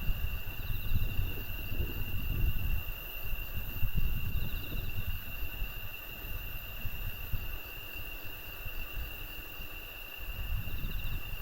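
Steady high-pitched insect chirring over a low, uneven rumble, with a short faint trill three times.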